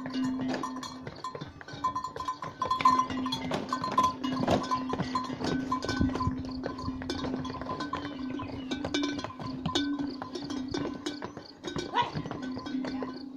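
Pack mules' hooves clattering on stone steps, irregular knocks from several animals, over the steady ringing of the bells they wear.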